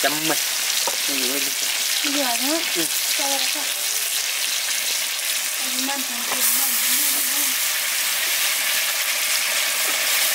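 Chopped tomatoes frying in oil in an iron wok over a wood fire, a steady sizzle that grows louder and brighter about six seconds in.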